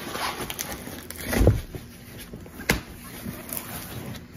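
A cardboard shipping box being handled and moved close to the microphone: scraping and rustling, with a dull thump about a second and a half in and a sharp knock a little over a second later.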